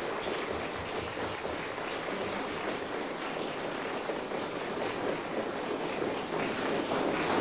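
Steady rushing noise with no clear tone, swelling slightly near the end.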